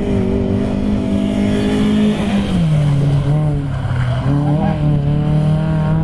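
Mini Cooper R50 race car's four-cylinder engine running hard. Its note drops in pitch about two seconds in as the driver lifts for the corner, then carries on lower. Wavering tyre squeal comes as the car turns through the bend.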